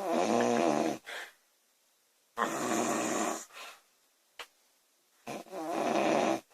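A woman snoring loudly: three snores, each about a second long and about two and a half seconds apart, the first two followed by a brief softer breath.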